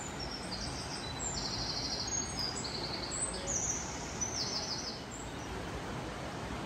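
A small songbird singing a string of rapid, high trills that stop about four and a half seconds in, over a steady rushing background noise.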